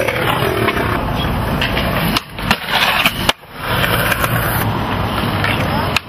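Skateboard wheels rolling over concrete in a steady rumble, with several sharp clacks of the board in the middle and another near the end.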